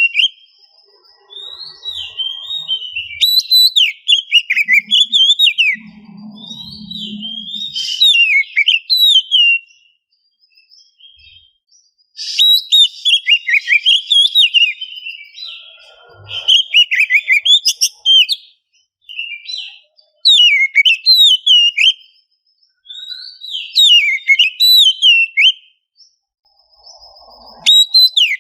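Oriental magpie-robin singing: a run of varied, rapid whistled and chattering phrases, each a second to a few seconds long, with short pauses between them.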